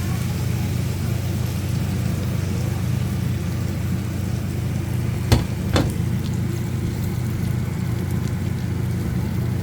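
Bitter gourd sautéing in a pan: a steady low hum with a faint sizzle over it. Two sharp clicks come about five seconds in, half a second apart, like a utensil knocking the pan.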